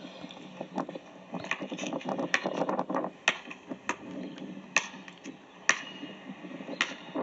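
A basketball bouncing on pavement, sharp knocks roughly once a second, heard played back through a TV's speakers.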